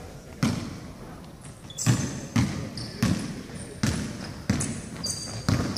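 Basketball bouncing on a wooden gym floor as it is dribbled: a run of echoing thuds, irregularly spaced about half a second to a second apart. Sneakers squeak on the floor from about two seconds in.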